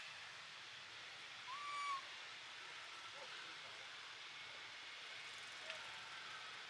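Baby macaque giving a short, clear coo call about one and a half seconds in, calling for its mother, with a couple of fainter short calls later, over a faint steady hiss.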